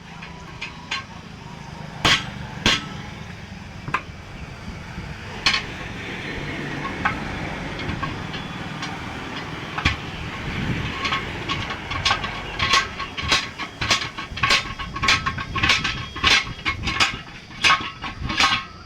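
Repeated metal-on-metal hammer blows and clinks while a truck's radial tyre is being taken off its steel wheel. There are two loud strikes about two seconds in, then a quick run of blows, about two or three a second, through the second half.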